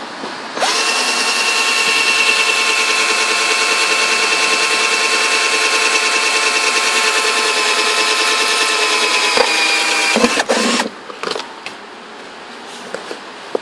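Bosch PSR 14.4 cordless drill running at a steady speed against a car's rusted floor pan, with a steady whine. It spins up about half a second in, runs for about ten seconds, then winds down and stops.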